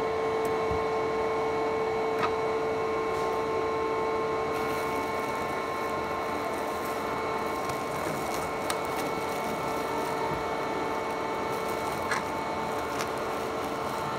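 Antminer S9 bitcoin miner's cooling fans running steadily, a constant whirring rush with a few steady tones in it, exhausting through fan shrouds into flexible foil ducting. A few faint clicks about two, nine and twelve seconds in.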